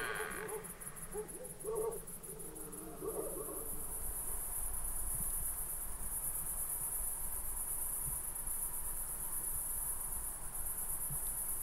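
Night insects, bush crickets, chirring steadily and high-pitched, pulsing rapidly at first and then running on unbroken. In the first few seconds a few short low calls sound, the tail of a red deer stag's rutting roar.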